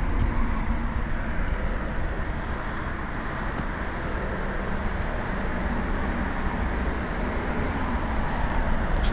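Steady road traffic noise, a vehicle passing with a low hum under a wide rush of tyre and engine noise.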